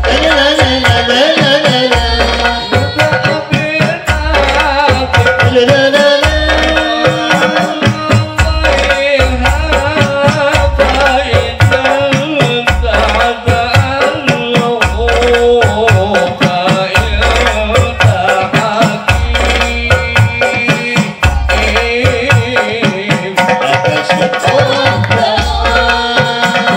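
A men's ensemble singing into microphones over loudspeakers, accompanied by rebana frame drums and jingle tambourines. A deep drum beat falls about every second and a half under dense quicker hand strokes and jingling.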